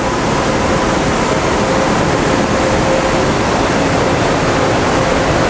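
Industrial machinery running: a loud, steady rushing noise with a faint steady hum.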